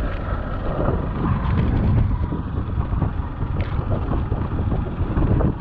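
Motorcycle riding along a dirt road, its engine running under a heavy, irregular rumble of wind on the camera microphone.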